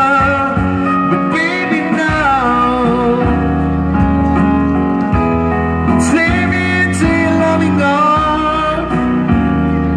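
Live keyboard-led band music: a pop ballad with a lead melody line over sustained chords and a bass line.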